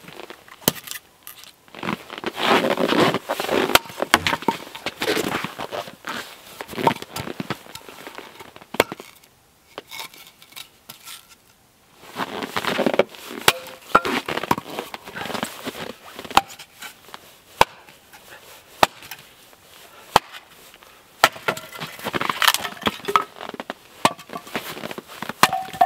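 Hatchet splitting kindling on a wooden chopping block: repeated sharp chops of the blade into wood at an irregular pace, with a lull about ten seconds in.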